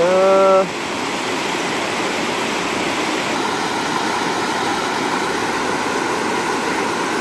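Water rushing steadily over a low stepped rock dam spillway. A brief voice sounds right at the start.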